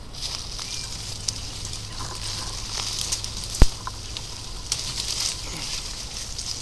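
Leaves and twigs rustling and crackling against a drone lodged in a bush, with scattered light clicks and one sharp click a little past halfway.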